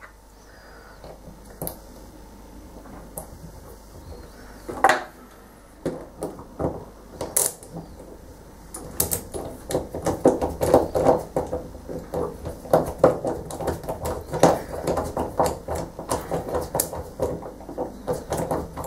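Small metal clicks and knocks as a chrome bath tap head is refitted and turned by hand. A few separate knocks come first, then a dense run of rapid clicking from about halfway.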